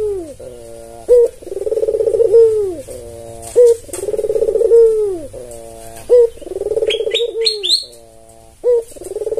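Albino Barbary dove (white ringneck dove) repeatedly calling: a short sharp note, then a long rolling coo that falls in pitch at its end, about every two and a half seconds. A few quick high chirps from another small bird come in near the end.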